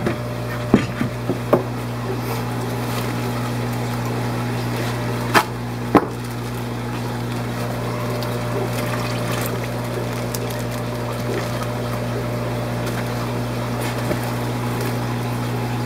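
Steady hum of aquarium pumps with water running. A few sharp knocks and taps come about a second in, and two more come around five and six seconds in.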